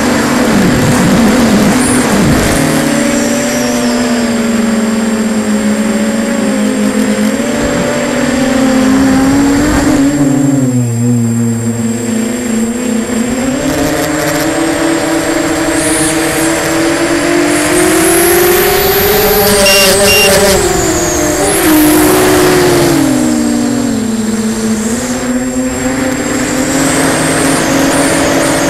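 Quadcopter's Emax 2204 brushless motors spinning 6045 propellers, heard from the onboard camera: a loud buzzing whine that rises and falls in pitch with the throttle. It drops low and quieter about ten seconds in, then climbs to its highest pitch around twenty seconds in before dipping again.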